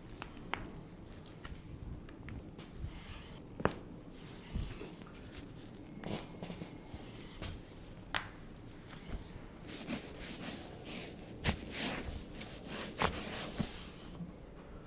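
Shuffling and rustling with scattered sharp clicks and knocks, as of people moving about and handling things in a small room.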